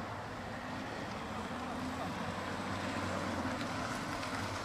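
Toyota car towing a caravan at low speed, its engine and tyres a steady low hum that slowly grows louder as it approaches, with wind noise on the microphone.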